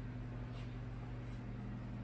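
Steady low electrical hum of the workshop, with a few faint light clicks.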